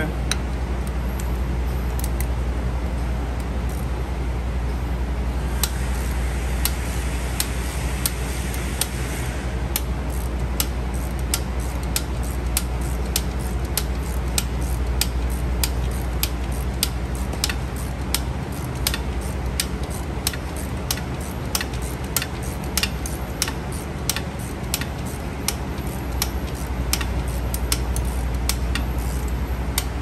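Rhythmic clicking as a wrench turns back the adjuster of a Bendix air disc brake caliper to retract the pads. The clicks are sparse at first, then come about two a second, over a steady low hum.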